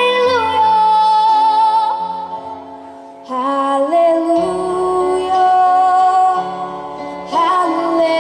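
A woman singing long held notes over a soft, sustained accompaniment, with short breaks about three seconds and seven seconds in.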